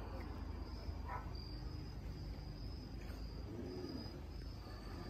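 Faint crickets chirping: a thin, high pulsing trill repeating steadily over a low background rumble.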